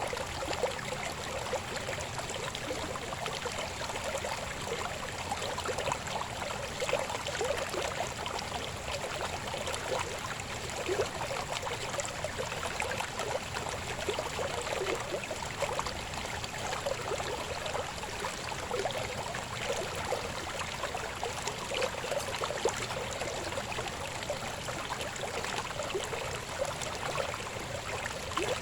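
Shallow river babbling over stones: a steady rush of water with many small splashes and gurgles.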